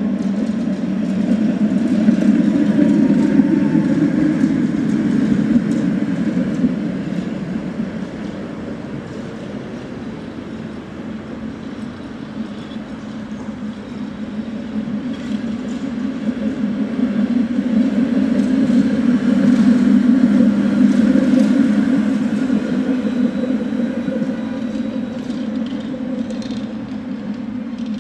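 Articulated tram rumbling past on its track, the rumble swelling twice as vehicles go by.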